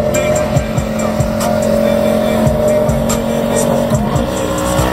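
Vehicle engine on the move, holding a steady pitch for several seconds, then starting to rise as it accelerates near the end.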